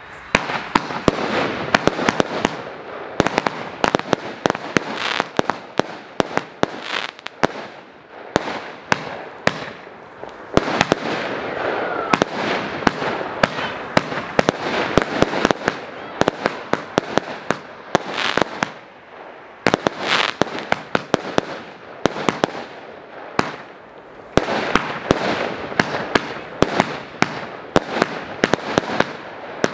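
Consumer fireworks battery (cake), 'Himlens Tempel', firing: the sound starts at once and keeps up a dense run of sharp cracks and pops over a crackling hiss. It eases briefly a few times between volleys.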